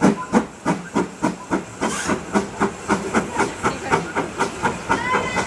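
Steam tank locomotive chuffing as it pulls the train away, its exhaust beats steady and quickening from about three to four a second. A brief high squeal near the end.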